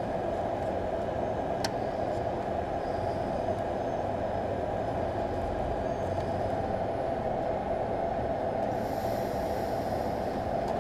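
Steady rushing background noise, constant in level, with one sharp click about two seconds in.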